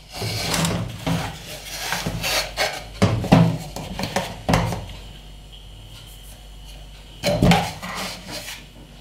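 Protein powder being scooped out of a plastic tub and tipped into a glass bowl of rolled oats: a run of rasping scrapes and rustles with sharp clicks of the scoop against the tub, then a quieter pause and one louder knock near the end.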